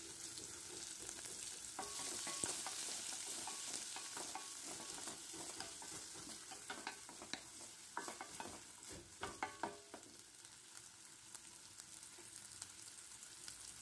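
Chopped onions and whole spices sizzling faintly in oil in a stainless steel kadai, stirred with a wooden spatula. The spatula scrapes and taps against the pan now and then, most often between about seven and ten seconds in.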